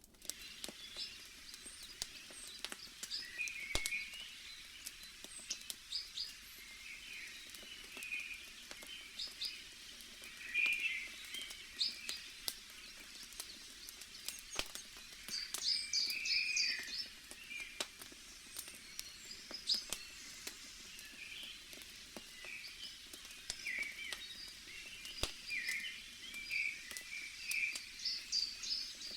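Small birds chirping and twittering in quick short calls throughout, over a faint steady hiss, with scattered sharp pops and crackles of a wood fire.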